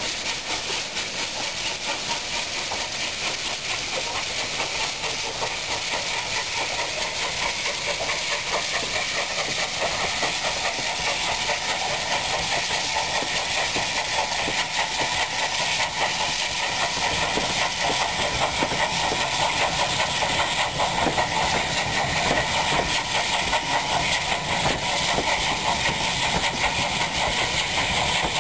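Bulleid Pacific steam locomotive pulling a train away while enveloped in escaping steam: a continuous loud hiss of steam, with the coaches rumbling over the rails as they pass, growing a little louder toward the end.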